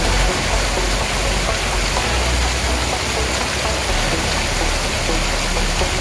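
Stream water pouring over a low two-step concrete weir and churning below it: a steady rushing splash.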